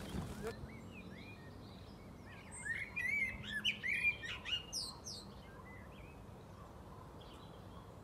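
Common blackbird singing: a series of short warbling phrases, busiest in the middle of the stretch, with quieter gaps around them.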